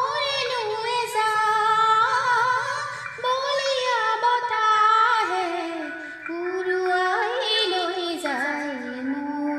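A woman singing an Assamese song with held, wavering notes over an instrumental backing track.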